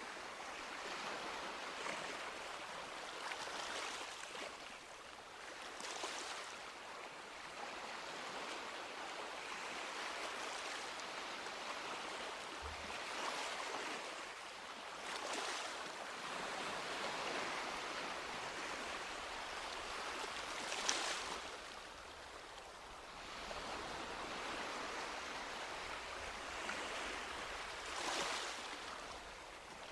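Gentle sea surf washing onto a beach: a steady hiss of water, with a wave swelling and breaking every few seconds. About two-thirds of the way through comes a short, sharper splash.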